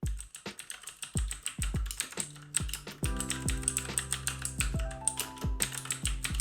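Background lo-fi music with a steady beat of deep kick drums and fast hi-hat ticks. Sustained chords come in about three seconds in.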